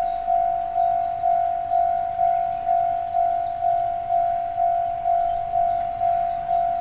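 Railway level-crossing warning bell, an electronic bell ringing a steady single tone about twice a second.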